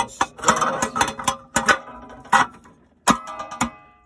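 Metal clanking and clicking as the valve cover is fitted onto the cylinder head of a Case 188D diesel engine. One knock about three seconds in rings briefly.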